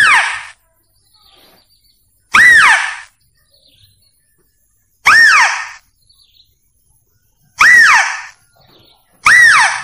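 Mouse-deer (kancil) lure call, the sound hunters play to draw mouse-deer: a loud, short squeal that rises and then falls in pitch, repeated about every two and a half seconds.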